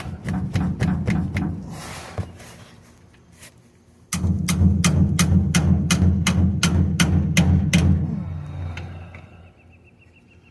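Rapid hammer blows on a pry bar wedged under a truck differential's pinion oil seal, driving the seal and bearing out of the axle housing. A quick run of strikes comes first. About four seconds in, a longer, louder run follows at three to four blows a second over a heavy low rumble, which dies away after about eight seconds.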